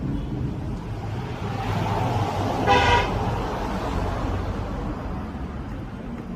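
A vehicle horn sounds once, a short honk a little under three seconds in, over a steady low rumble.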